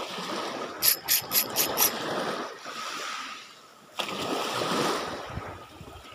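Small waves lapping and washing onto a shallow beach, the wash rising and falling. About a second in comes a quick run of about five sharp clicks, then a single click a few seconds later.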